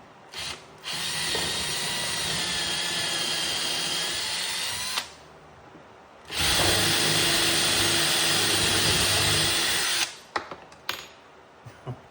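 Power drill running in two long bursts of about four seconds each, the second louder, with a brief blip of the trigger just before the first. A few light clicks follow near the end.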